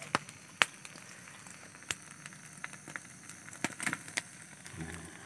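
Crackling and several sharp clicks as the charred, fire-roasted fish is broken open by hand in a metal bowl. The loudest clicks come near the start, with a cluster about four seconds in.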